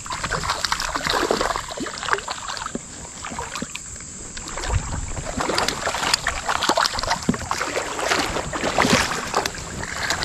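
A hooked trout splashing and thrashing at the surface of the creek as it is played in on the line, with a landing net dipped into the water near the end.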